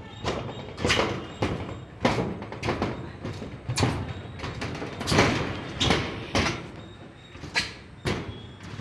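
Irregular knocks and bangs, one or two a second, each with a short ringing tail.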